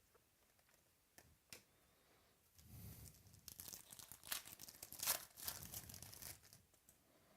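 A foil trading-card pack being torn open and its wrapper crinkled: two light clicks about a second in, then about four seconds of crackly tearing and crinkling.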